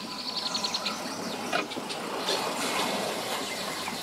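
A bird's rapid trill of short high chirps in the first second, over steady outdoor background noise.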